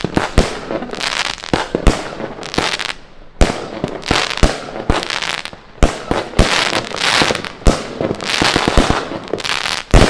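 A 16-shot firework cake, Bonfireworks 'Whispering Waves', firing shot after shot: a sharp bang about every second, with hissing between the shots as the effects burn out.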